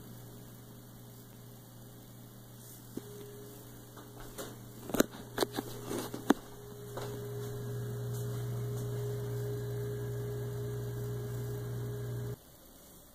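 Steady electrical mains hum with a fainter higher tone above it. A few sharp clicks and knocks come about five to six seconds in. The hum gets louder about seven seconds in and cuts off suddenly near the end.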